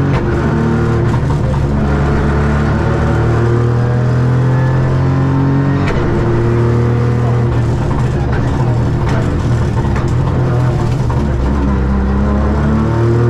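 Ford Fiesta Rally3's turbocharged three-cylinder engine at full rally pace, its pitch repeatedly climbing and dropping as it is driven up and down the gears, with a few sharp clicks along the way.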